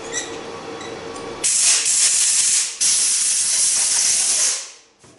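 Compressed air blowing out the cleaned nozzle of a Bosch common-rail diesel injector: a loud hissing blast starting about a second and a half in, broken once briefly, then fading out near the end.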